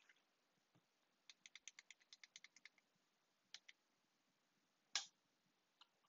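Faint clicking at a computer: a quick run of about a dozen light ticks, then a couple of single clicks, and one louder click about five seconds in.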